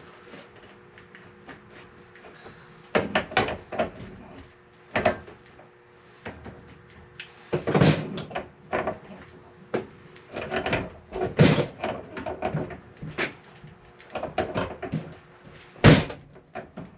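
Hand tools clanking and knocking on the stove's metal top and frame as pliers and a wrench tighten the taped propane line fitting: a run of irregular knocks and scrapes, the sharpest a clack near the end.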